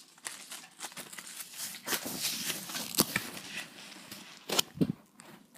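Handling noise of a strap being fitted to a plastic airsoft rifle: rustling and scraping with scattered sharp clicks, the sharpest about three seconds in and again near four and a half seconds.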